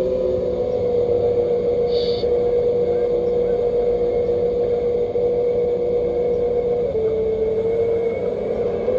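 Simulated diesel engine sound from an RC model sound kit's small speaker, a steady hum that shifts pitch slightly about seven seconds in, over the running noise of the model excavator's drive as its boom swings down.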